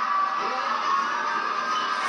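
Film soundtrack music playing from a television, sounding thin with no deep bass, as heard through a TV speaker.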